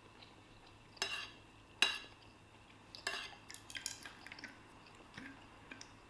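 Cutlery clinking against a plate while eating: three sharp clinks with a brief ring, about a second apart, the second the loudest, then a run of lighter taps and scrapes.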